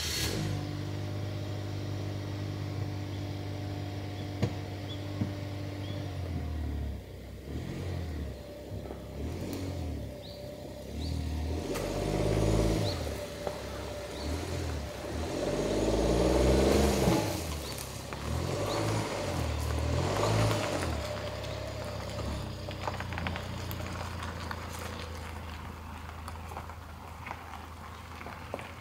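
A Suzuki Jimny JB64's small three-cylinder turbo engine, just started, idles steadily for about six seconds. Its pitch then rises and falls several times as the car pulls away and works up through the gears, loudest about midway, before settling into a steadier run near the end.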